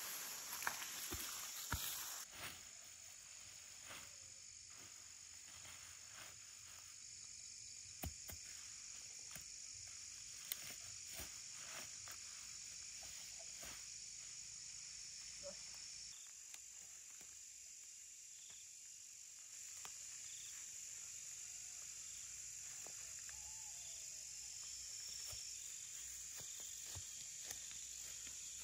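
A steady, high-pitched chorus of insects, with scattered soft rustles and snaps of leafy plants being handled and pulled.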